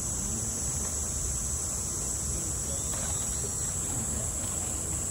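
Cicadas buzzing in one steady, high, unbroken drone over a low background rumble.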